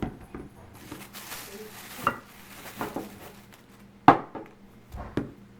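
Grocery containers being handled and set down: a few sharp knocks and clinks, the loudest about four seconds in, over a steady rustling.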